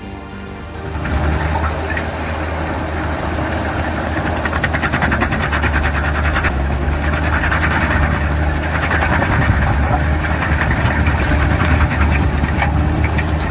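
Heavy machine's engine running steadily under work, with a fast, even rattling over the low hum; it comes in about a second in, replacing music.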